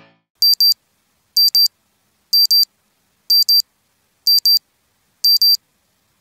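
Electronic alarm-clock-style beeping for a countdown: a quick, high double beep once a second, six times, with silence between.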